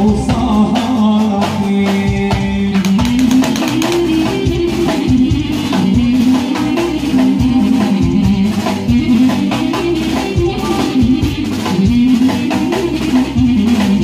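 Live band music: a drum kit keeps up a dense rhythm under a wavering, ornamented melody carried on electronic keyboard.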